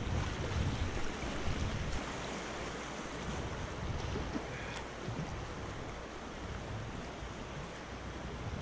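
Steady rushing of creek water with wind buffeting the microphone, the wind rumble strongest in the first second and again near the end.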